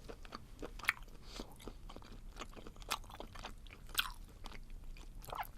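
Close-miked chewing of chewy, spicy stir-fried baby octopus (jjukkumi), with irregular sharp mouth clicks.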